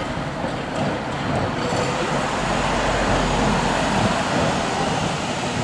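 Manx Electric Railway Ratchet Car 16, a narrow-gauge electric tramcar, running toward the listener: a steady noise of its wheels on the rails and its traction motors.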